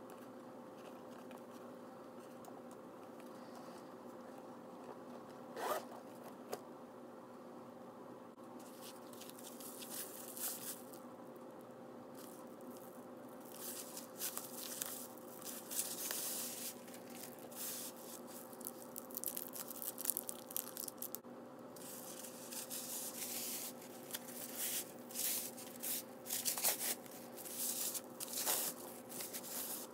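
Crinkling and rustling of the white protective wrap being pulled off a leather shoulder strap, in irregular bursts that start after about eight seconds and grow busier toward the end. A single sharp click comes about six seconds in.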